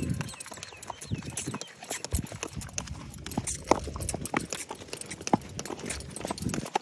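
A ridden horse's hooves clip-clopping on a packed dirt path at a walk, a quick irregular run of sharp hoof strikes.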